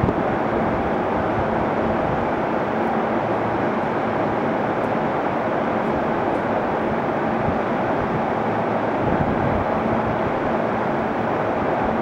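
A JR East E231-series electric train running as it pulls away along the track, a steady rumbling noise.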